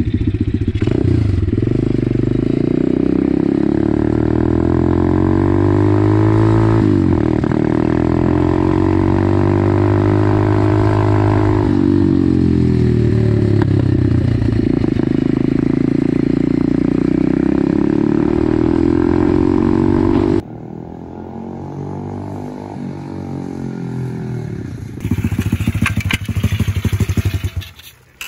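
A 125cc pit bike's single-cylinder engine running under way, its pitch climbing and falling several times as it revs up and eases off, with its clogged carburettor jets freshly cleared. About twenty seconds in the sound drops abruptly to a quieter, lower running.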